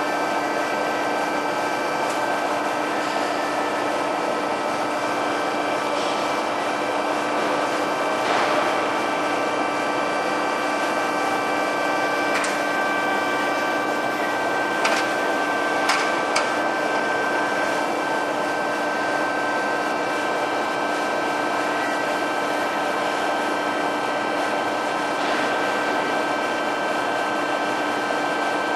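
DoAll 2608NC vertical band plate saw running, a steady machine hum with a constant whine, and a few short sharp clicks about halfway through.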